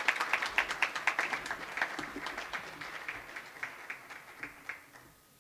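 Applause from a small audience, the separate claps plainly distinct, thinning and dying away about five seconds in.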